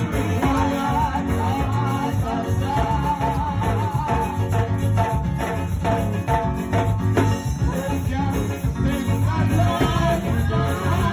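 Live band music played through loudspeakers, with an electric bass guitar laying down a steady bass line under a melody line, without a break.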